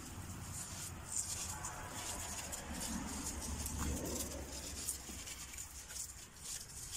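Knapsack pressure sprayer's wand hissing in short, irregular bursts as the spray is triggered on and off over potted plants, with a low rumble underneath.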